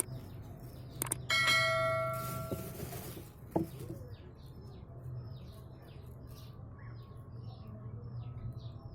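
A single bell-like ring, struck about a second in, that dies away over a second or two. Small birds chirp repeatedly throughout over a low steady hum.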